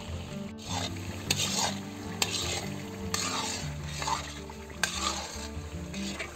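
Metal spatula stirring thick dodol mixture in a metal pan as it cooks down, a wet slopping and scraping with a few sharp scrapes of metal against the pan.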